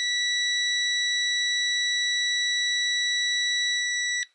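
Tesmen TM-510 digital multimeter's continuity beeper sounding one steady high beep while its test-lead tips touch, signalling a closed circuit. It cuts off suddenly a little after four seconds in, as the leads are parted.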